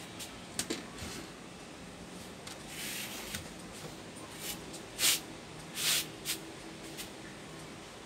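Steady low hum with several short hissy noises over it, the loudest two about five and six seconds in.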